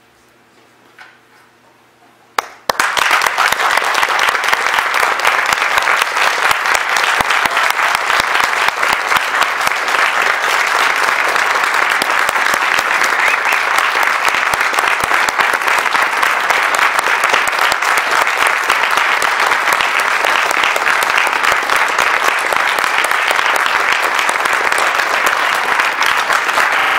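Audience applauding. It breaks out suddenly about two and a half seconds in, after a quiet moment, and goes on as a steady, dense clapping.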